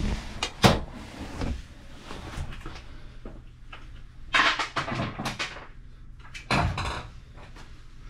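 Handling noises from a hand-pumped grease gun being taken off the motor bearing's grease fitting and set down: a couple of sharp knocks early, then short rustling scrapes about halfway and again near the end.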